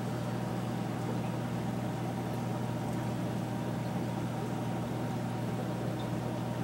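Reef aquarium pumps running: a steady low electric hum, unchanging in pitch and level.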